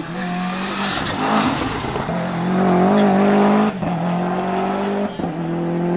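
Subaru Impreza WRX STI's turbocharged flat-four engine running hard at high revs. The note holds a fairly steady pitch and is cut by several short breaks: about a second in, near two seconds, and twice more toward the end.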